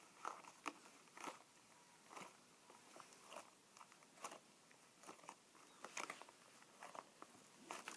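Butter slime being poked with fingers: irregular soft sticky clicks and squelches, sometimes several close together.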